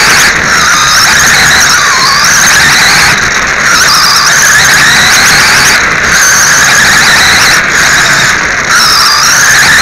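Onboard sound of a radio-controlled late model race car lapping a dirt oval: a continuous high motor and gear whine whose pitch dips and climbs again several times as the throttle comes off and back on.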